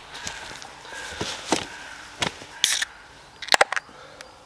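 Aluminium beer can being handled and cracked open: a series of sharp clicks and pops with short hisses, a tight cluster of clicks near the end.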